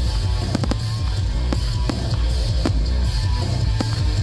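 Music with a heavy bass line, over which firework shells burst with sharp reports about every half second to a second.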